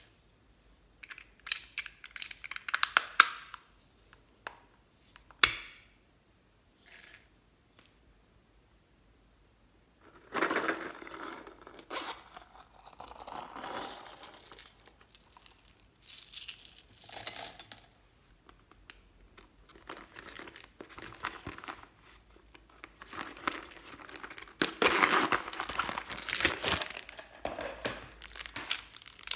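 Handling noises from slime toys: a scatter of sharp clicks and taps from small plastic toy figures against a glass dish, then long stretches of crinkling and rustling, with a plastic zip bag crinkling near the end.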